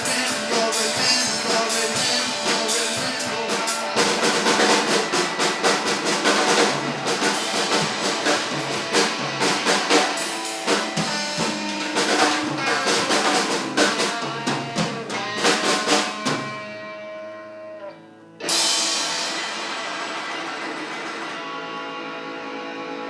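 Live rock band playing an instrumental ending with a busy drum kit, guitars and bass; the band stops about sixteen seconds in and the sound dies away. A sudden loud crash about two seconds later rings out, followed by steady held notes.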